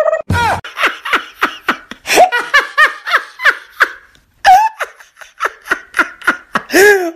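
A short, deep boom, then a long run of high-pitched laughing in quick separate bursts, a brief pause a little past the middle, and a drawn-out falling laugh near the end.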